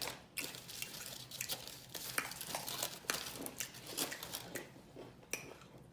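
Close-miked eating sounds: chewing with wet lip-smacking and irregular crunchy clicks.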